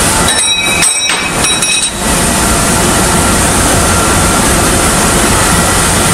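Loud, steady machinery noise with a few thin steady tones in it; the low rumble briefly drops away from about half a second to two seconds in.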